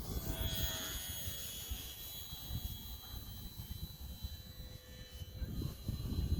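HobbyZone Sport Cub S2 RC airplane's small electric motor and propeller whining steadily in flight, over a low, gusting rumble of wind on the microphone.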